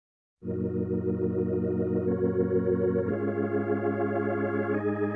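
Organ music: held chords starting about half a second in, changing to a new chord three times.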